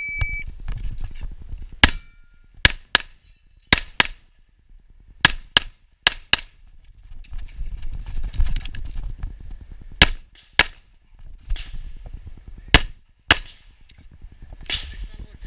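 An electronic shot timer gives a short start beep, then an STI Trojan .38 Super pistol fires about fifteen shots, mostly as quick pairs (double taps) a third of a second apart, with pauses of a second or more between pairs as the shooter moves between targets.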